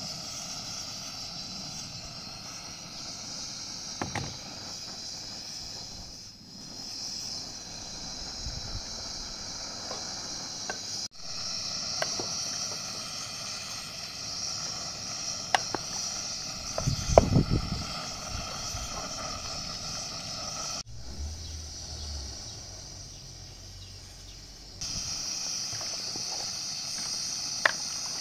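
A wooden spoon stirring whole cherries, apricots and plums in a large aluminium pot, with scattered knocks of the spoon and fruit against the pot, the loudest cluster about two thirds of the way through. A steady high-pitched hiss runs underneath.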